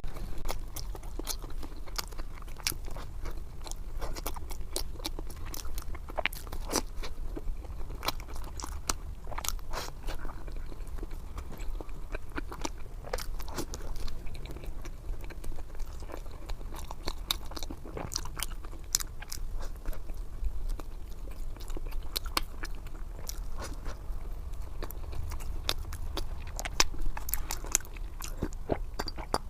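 Close-miked eating: a person biting and chewing crunchy food, with a dense run of sharp crunches and clicks several times a second.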